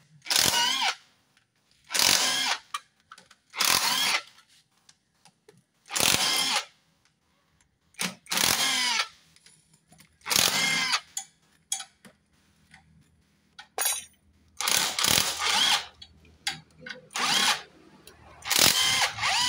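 Cordless power driver spinning out the bolts of a Honda Supra X 125's right-hand engine cover. It runs in short bursts of about half a second to a second, roughly every two seconds, and its motor whine rises and falls with each bolt.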